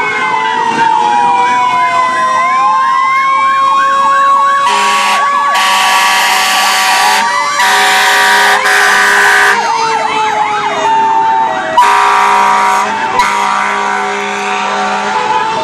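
Several emergency sirens sounding at once, overlapping wails and fast yelps sweeping up and down in pitch. From about five seconds in a fire truck's air horn sounds in several long blasts, the loudest sound, with another blast near twelve seconds.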